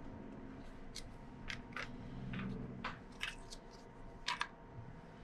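Scattered light clicks and taps of a hard plastic piece knocking against the steel cutter discs of an idle shredder as it is set in place, the loudest a quick double click near the end, over a low steady hum.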